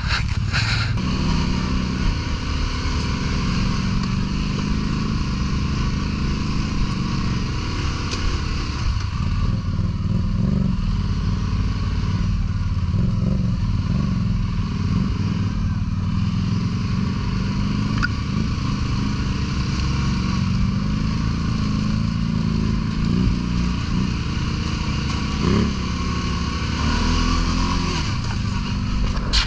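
ATV engine running at low speed, its pitch shifting slightly up and down with small changes of throttle.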